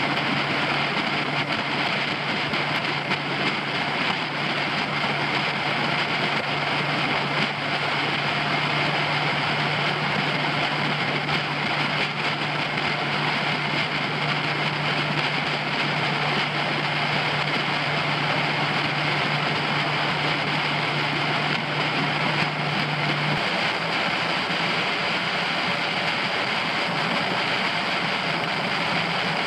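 Suzuki DF90ATL four-stroke outboard running steadily at cruising speed, pushing a freighter canoe along, with the rush of wind and water from the hull. A low steady tone in the engine note drops away about 23 seconds in.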